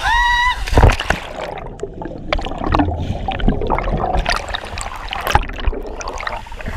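A short whoop, then a loud splash about a second in as an action camera goes under the water of a waterfall pool. After that comes muffled underwater gurgling and bubbling, with scattered small clicks.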